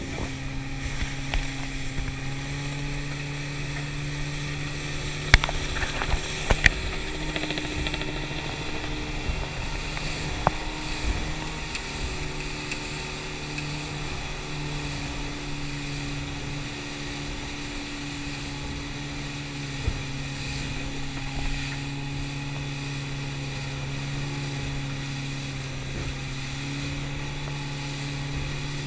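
Outboard motor of a small boat running steadily at speed, one low held tone with wind and water rushing over it. A few sharp knocks come about five to seven seconds in.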